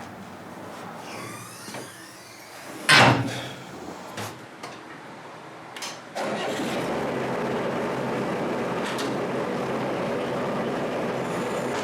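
Bobcat skid steer loader's engine being started: a loud clunk about three seconds in, then the engine catches about six seconds in and runs steadily.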